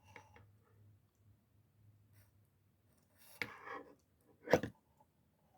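Tools of a Victorinox Super Tinker Swiss Army knife being handled: a few faint clicks, then a louder click about three and a half seconds in and a sharp metallic snap about a second later, as a tool springs open or shut.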